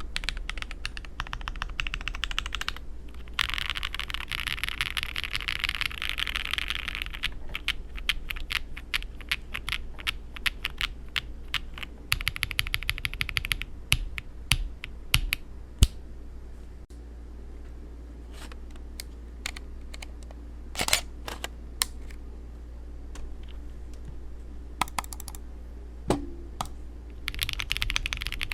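Typing on an Akko SPR67 spring-mounted 65% mechanical keyboard, set up with 170 g springs and all its foams. There are fast runs of keystrokes for the first several seconds, then slower single key presses with gaps, then fast typing again near the end.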